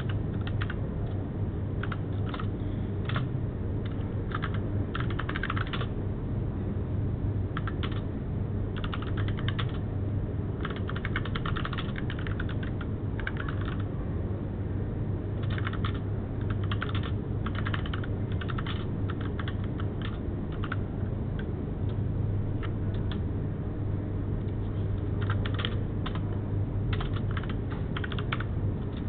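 Typing on a computer keyboard in quick runs of keystrokes with short pauses between them, over a steady low hum.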